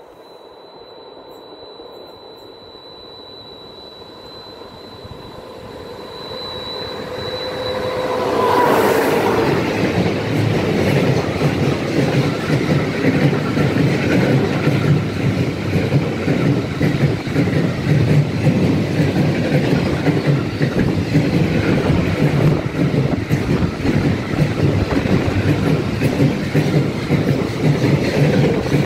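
A freight train approaches and passes close by. For about eight seconds a thin, steady whine grows louder; it dips in pitch as the front of the train goes by. After that, empty two-deck car-carrier wagons rumble past, their wheels clattering rhythmically over the rails.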